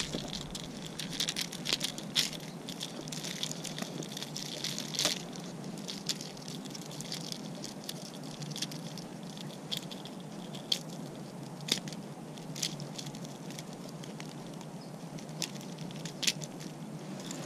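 Hands handling a small, freshly caught largemouth bass and unhooking a jerkbait from it: irregular small clicks and wet pats over a steady hiss.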